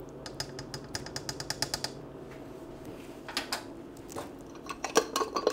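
A quick run of light metallic clicks, about nine a second for a second and a half, then a few scattered clicks: a metal measuring spoon tapped against the rim of a slow cooker's crock to knock off the flour.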